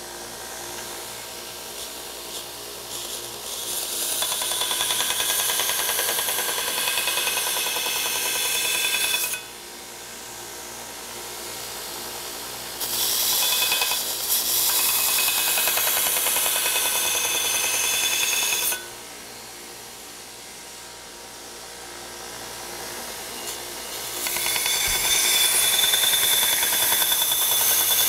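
Grizzly / Shop Fox 2x72 belt grinder running steadily while an axe head is ground against the belt in three passes. Each pass is a loud grinding of steel on the abrasive belt lasting about five seconds, starting about four, thirteen and twenty-four seconds in. Between passes only the motor and belt are heard.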